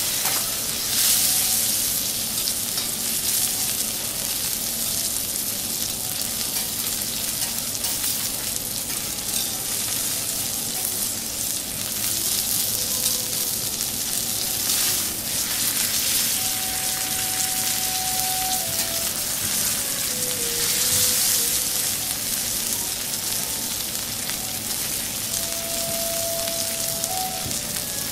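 Thick Akita beef steak sizzling in its juices on a hot teppanyaki griddle, a steady searing hiss that swells louder a few times.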